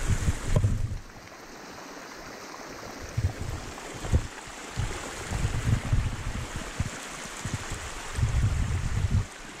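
Rainwater running down a flooded forest trail as a steady rushing hiss. Low, irregular buffeting bumps on the camera microphone come and go over it.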